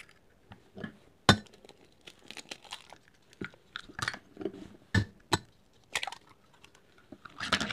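Raw eggs being cracked open one after another into a glass measuring cup: a series of sharp, separate cracks of shell and clinks against the glass.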